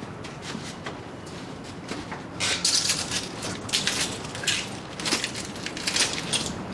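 Footsteps crunching and scraping through rubble and broken wood on a floor, starting about two and a half seconds in.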